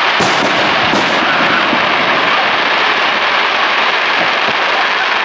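Fireworks display going off continuously, a dense unbroken crackle and rumble of shells, with sharp bangs about a quarter second and about a second in.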